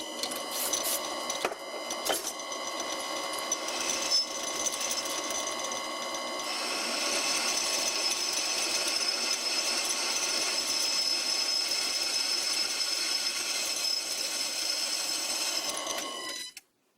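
Vintage bench wood lathe running while a cutting tool faces off a piece of aluminium: a steady motor whine with a high ringing over the scrape of the cut, with a few sharp ticks near the start. The cut gets louder about six seconds in, and the sound stops abruptly near the end.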